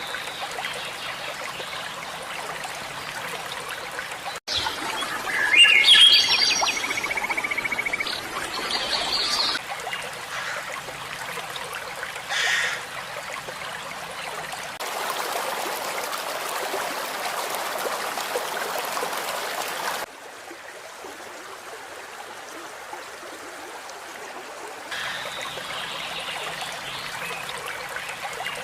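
River water flowing steadily, with birds singing and calling over it, including a rapid trill in the first third. The water's sound changes abruptly every few seconds.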